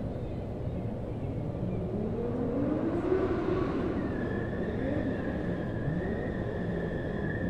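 Distant vehicle noise over a steady low rumble. About two seconds in, one engine note rises and then falls as the vehicle passes. A steady high whine comes in about four seconds in.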